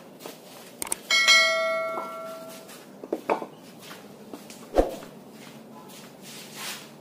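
A bell-like notification chime rings about a second in and fades over a second and a half. Two heavy knocks follow, bricks set down on a concrete floor, the second as loud as the chime.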